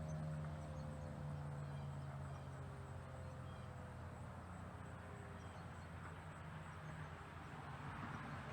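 Federal Signal 2001 electromechanical tornado siren winding down after being shut off: its tone slides slowly lower and fades away over several seconds as the rotor coasts to a stop.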